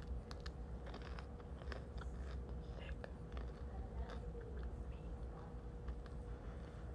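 Close-up chewing of a mouthful of bread: irregular small mouth clicks and smacks over a steady low hum in the room.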